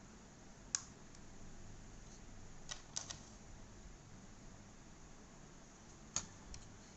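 A few sharp little plastic clicks and taps as the nano USB receiver is pried out of its storage slot in the underside of a Dell WM118 wireless mouse: one about a second in, a quick cluster around three seconds, and two more near the end.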